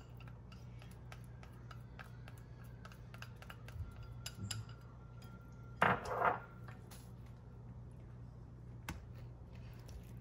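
Chopsticks stirring and tapping in a ceramic bowl as pickled carrot is mixed into wet shrimp paste: a run of light clicks, with one louder clatter about six seconds in.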